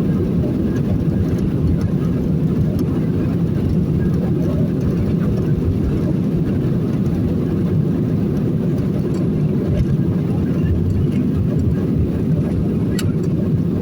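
Steady low rumble of a passenger jet's engines and airflow as heard inside the cabin.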